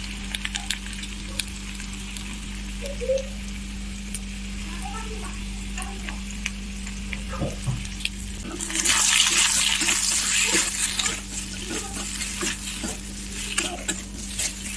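Sliced potatoes frying in oil in a metal pan, sizzling with scattered crackles. About nine seconds in, the sizzle surges loudly for a couple of seconds, then settles. Near the end, a spatula stirs and scrapes the slices around the pan.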